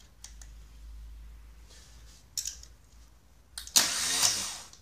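Starter motor cranking the engine briefly, for about a second, with the crackle of a jump-lead clamp sparking against the starter terminal; the engine does not fire. A shorter sparking crackle comes about halfway through.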